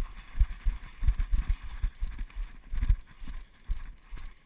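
Running footsteps with the knocks and jostling of a body-worn camera: irregular heavy thumps and a rustling hiss as the player moves at speed.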